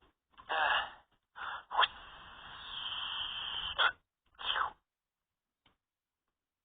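A child's voice making mouth sound effects for water squirting from a trick flower: a few short breathy bursts, then a steady hiss of about two seconds, then one last short burst.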